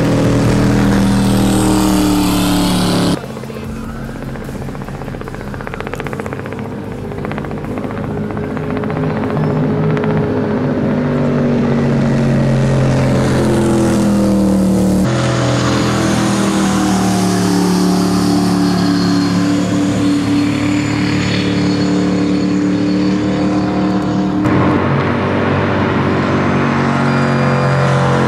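Big-block race ski boat engines running flat out at high speed, in several cut-together passes. The sound drops abruptly quieter about three seconds in and builds back over the next several seconds, with further sudden changes at the cuts around fifteen seconds and near twenty-five seconds.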